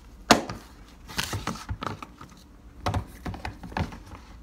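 Small makeup items being handled and set down on a table: a few sharp clicks and knocks, the loudest just after the start and several more near the end, with a short rustle about a second in.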